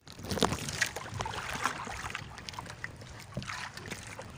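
Water lapping against a small wooden outrigger boat, with scattered light knocks and rustles as a catch of small fish is handled in the bottom of the hull.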